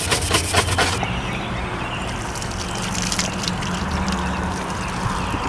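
Quick repeated rubbing strokes of cleaning on the caravan's exterior for about the first second, then a steady watery hiss.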